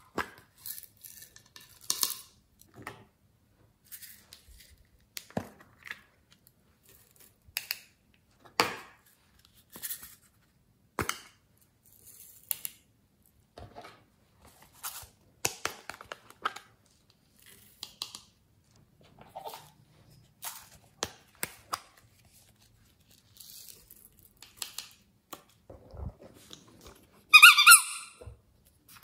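Small plastic containers of sequins and glitter handled over a glass dish of slime: scattered light clicks, taps and rustles as they are tipped out and set down. Near the end comes one short, loud, high squeak of plastic.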